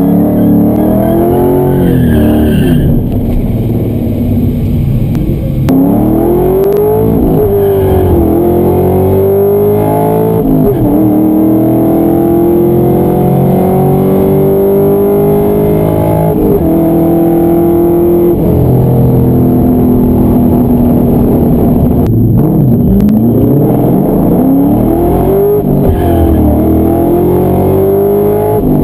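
Ford Mustang Mach 1's V8 heard from inside the cabin during a drag run: it pulls hard through the gears, its pitch climbing and dropping back at each upshift, then eases off and slows before picking up revs again near the end.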